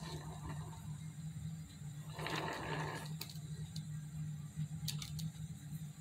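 A steady low background hum under light handling noise as craft decorations are moved about: a brief rustle about two seconds in and a few soft taps later.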